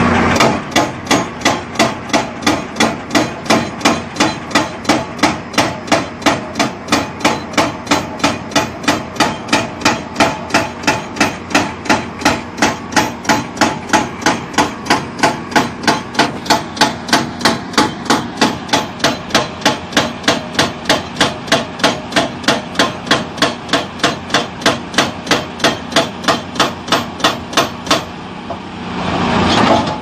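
Excavator-mounted hydraulic rock breaker hammering into rock, a steady run of about two blows a second. The blows stop near the end, leaving the excavator's engine running.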